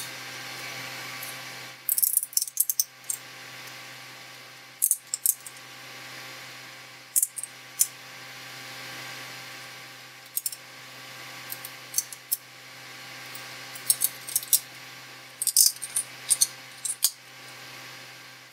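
Small sharp clicks and snaps of printed plastic support material being picked and broken off a 3D-printed part, coming in little clusters every second or two over a steady low hiss.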